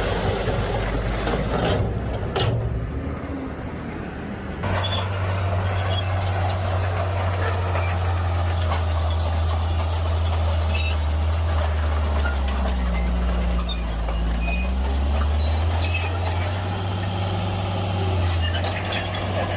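A heavy earthmoving machine's diesel engine running steadily with a deep drone. It eases briefly near the start and picks up again about five seconds in, with a short dip and rise in pitch around the two-thirds mark.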